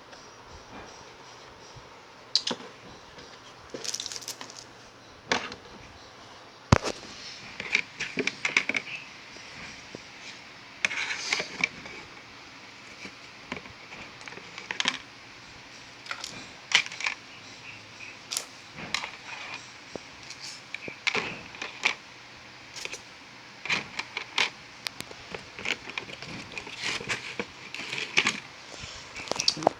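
Close-up eating sounds: irregular crisp crunches and mouth clicks of chewing, coming in uneven clusters.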